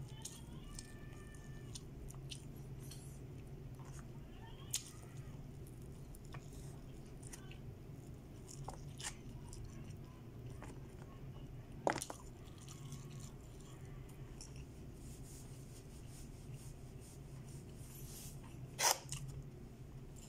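Quiet eating sounds: fingers picking rice and chicken from an aluminium foil tray and chewing, heard as scattered soft clicks and crinkles with a few sharper clicks. A steady low hum runs underneath.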